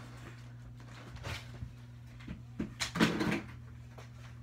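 Knocks and clatter of a computer keyboard being handled and set down on a desk, loudest about three seconds in, over a steady low hum.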